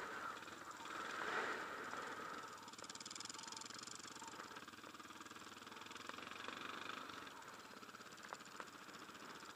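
Off-road motorcycle engine running while riding, heard through a helmet-mounted camera together with a steady rush of wind. It is louder for the first couple of seconds, then settles to a steadier running note.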